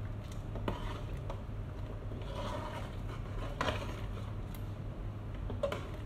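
Metal spoon stirring a pot of goat stew, with several short scrapes and clinks against the pot, over a steady low hum.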